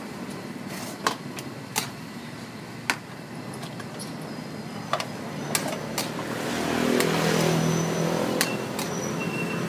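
Street ambience with a motor vehicle passing, loudest about seven seconds in, and sharp clicks scattered through.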